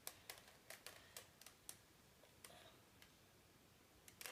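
Plastic Rubik's cube layers being turned in quick succession, faint sharp clicks about four a second, then a pause and another few clicks near the end.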